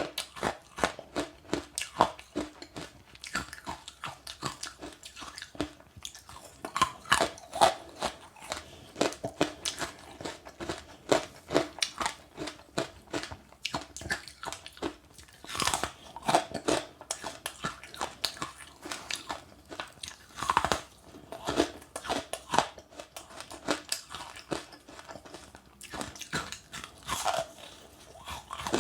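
Close-up chewing and crunching of passionfruit pulp, the hard seeds cracking between the teeth in quick, irregular crunches.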